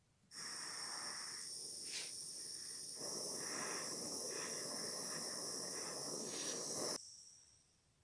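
Electric hot-air gun running: a steady rushing blow with a high whine, heating rosin and solder on a stamped brass buckle for soldering. It switches off near the end and the whine dies away.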